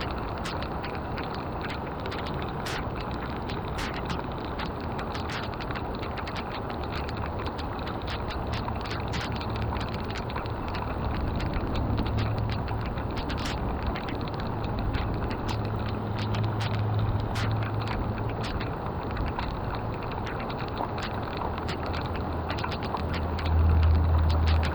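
Steady rush of water with many small crackles and clicks through it, and a low rumble that swells about a third of the way in and again near the end.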